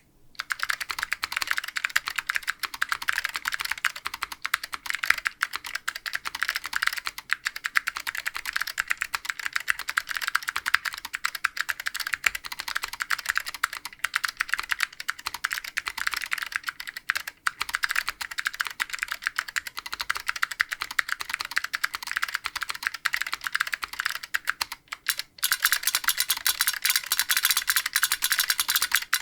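Fast, continuous typing on a custom mechanical keyboard with Alps SKCM Amber switches, a 1.2 mm aluminium plate and Apple AEK II JP keycaps. Each keystroke is a sharp click. About 25 seconds in, after a short pause, a solenoid starts clicking along with each keystroke, and the clatter becomes louder and brighter.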